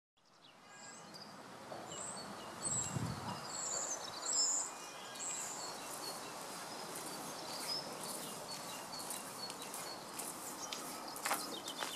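Outdoor ambience with birds singing and chirping over a steady background hiss, fading in at the start. A few sharp clicks sound near the end.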